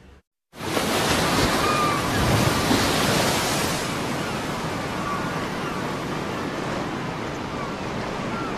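Sea surf on a rocky shore: waves washing in a steady rush that starts suddenly about half a second in.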